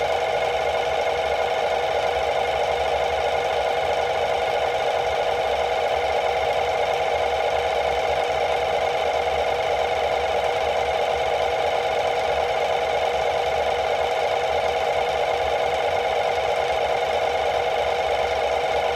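Steady, even buzz of a small motor, unchanging in pitch and level.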